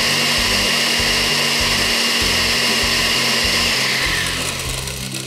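Countertop blender running at speed, crushing ice into a watermelon granizado, then winding down about four seconds in.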